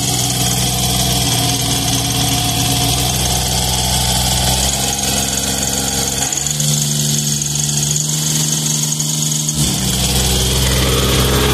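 Diesel engine of a Sullivan portable screw air compressor running, its speed shifting up and down several times around 1,800 to 2,000 rpm. The engine is hunting under load, a fault the mechanic puts down mainly to the minimum-pressure valve or air pressure regulating valve.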